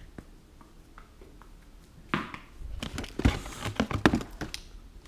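Things knocking and clattering in a plastic storage drawer as it is handled, a run of sharp knocks and rattles starting about two seconds in, with a few faint clicks before.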